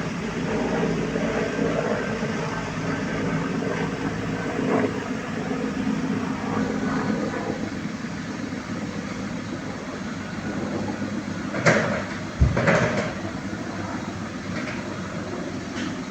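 Engine of a mechanical grab loader running steadily while it handles oil palm fruit bunches. Two or three sharp clanks come about twelve seconds in.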